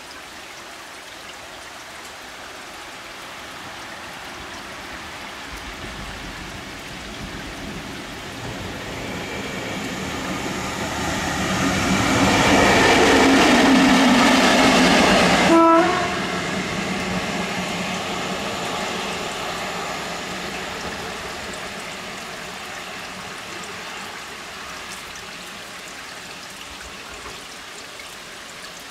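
HŽ Cargo class 1141 (ASEA Rb1-type) electric locomotive hauling a work train, growing louder as it approaches and passing close about halfway through. The sound drops suddenly as the locomotive goes by, then the train fades slowly as it rolls away, with rain falling underneath.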